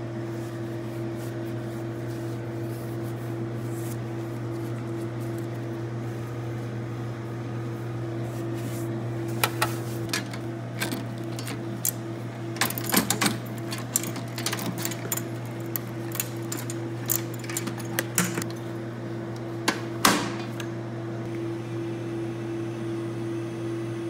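Steady low hum of running equipment, with a scattered run of sharp metallic clicks and rattles from about nine to twenty-one seconds in as a lockout padlock is handled; the sharpest click comes near the twenty-second mark.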